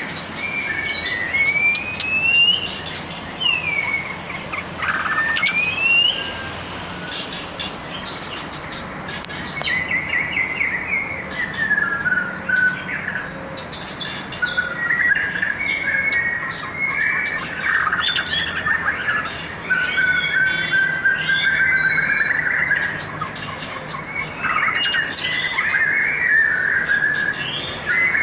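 A competition songbird singing a long, varied song: rising whistled notes in the first few seconds, then fast, chattering warbles with sharp clicking notes mixed in.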